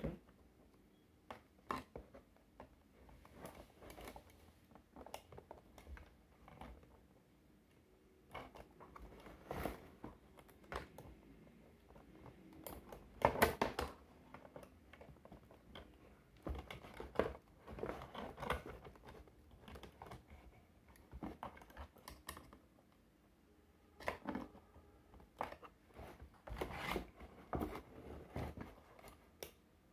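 Scissors snipping and a cardboard-and-plastic toy box rustling and knocking as an action figure is cut free from its packaging: irregular clicks and crinkles, loudest a little under halfway through.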